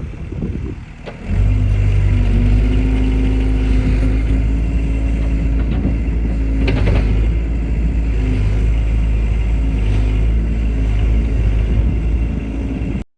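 Excavator's diesel engine running at a steady speed. It comes in suddenly about a second in and cuts off abruptly near the end.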